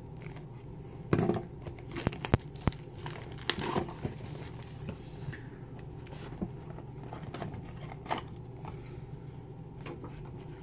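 Packaging crinkling and tearing as a Magic: The Gathering prerelease kit box is opened by hand, in a few loud bursts during the first four seconds, then lighter clicks and rustles of the cardboard box being handled.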